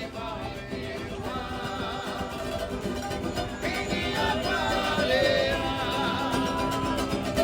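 Background music: plucked guitar with a singing voice, growing gradually louder.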